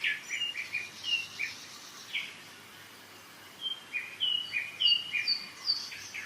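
Several songbirds singing in a spring forest: quick runs of short chirps at first, a brief lull, then clear whistled notes that climb higher near the end. Under them is the steady hiss of a mountain river.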